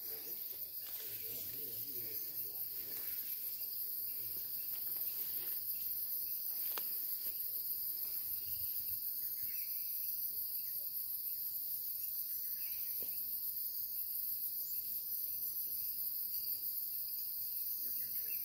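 Steady, high-pitched chorus of forest insects, an unbroken shrill hum that does not let up.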